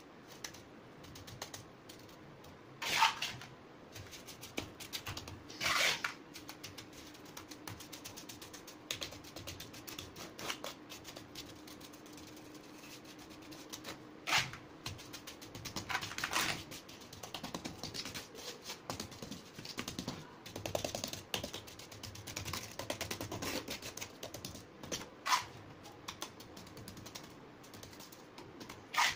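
Mason's trowel working wet sand-cement mortar into a round plastic mould: rapid light taps and pats as the mix is pressed down and smoothed, with a handful of louder, short scrapes of the trowel.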